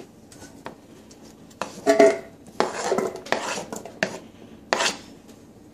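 Knife blade scraping chopped vegetables across a wooden chopping board into a metal bowl: a handful of scrapes and knocks against the board and bowl, the loudest about two seconds in with a brief metallic ring.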